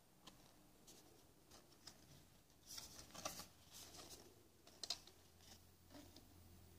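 Faint handling noise of a paper pop-up butterfly card: scattered light rustles and ticks of the card in the fingers, with a short cluster about three seconds in and a sharp tick near five seconds.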